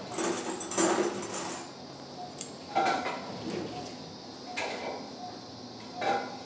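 Stainless steel surgical instruments clinking and being handled, in a clatter over the first second or so and then in short bursts every couple of seconds. Faint short beeps repeat at a steady pace behind them, typical of an anaesthesia monitor's pulse tone.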